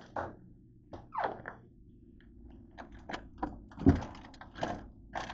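Handling a plastic bag and items in a refrigerator: a string of short knocks and rustles, with one louder thump about four seconds in.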